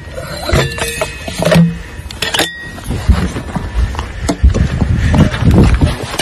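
Rustling, scraping and knocking of clothing and gear against a body-worn camera, with a few sharp metallic clinks.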